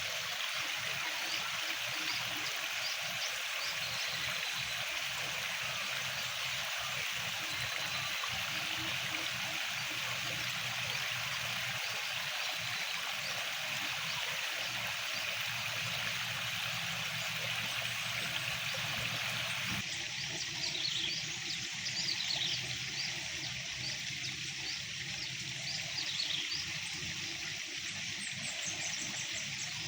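Water trickling and running steadily. The sound changes abruptly about two-thirds of the way through, and a few short high chirps come after that.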